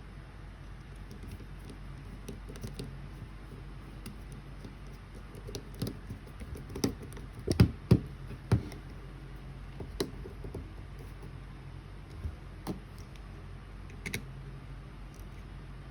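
Irregular clicks, taps and knocks of small parts and tools being handled on a work surface, busiest in the middle with a few double knocks, over a steady low hum.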